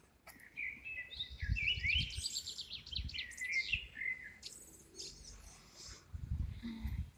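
A songbird sings one long, varied phrase of high chirps and rapid trills, ending about five and a half seconds in. A few dull low thumps sound underneath.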